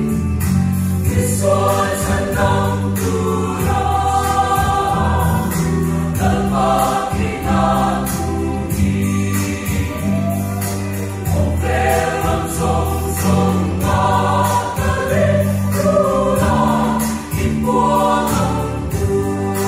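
Mixed choir of men and women singing a gospel hymn in Mizo, over a band accompaniment with a low bass line and a steady beat, in a reverberant church hall.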